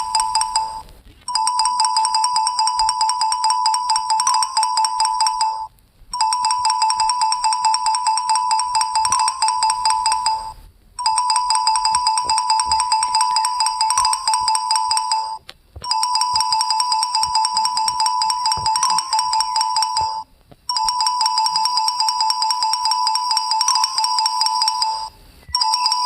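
A phone ringtone: one steady, high electronic tone pulsing rapidly, sounding in phrases of about four and a half seconds with short breaks between, repeated five times.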